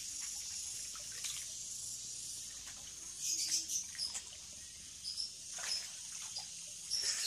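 Pond water sloshing and splashing as a man wades through it and sweeps landing nets through the water, with a few sharp splashes from about three seconds in. Short high bird chirps sound now and then.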